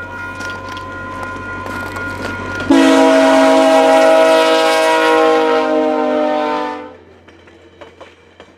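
VIA Rail F40PH-2 diesel locomotive's air horn sounding as the train approaches, then a much louder multi-note blast starting suddenly about three seconds in, holding for about four seconds and cutting off as the locomotive passes. After it, the passenger cars' wheels click over the rail joints.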